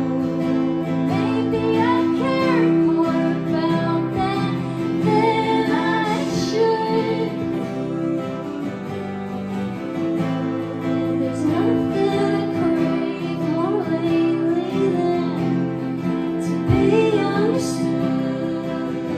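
Live acoustic guitar playing with a woman singing over it.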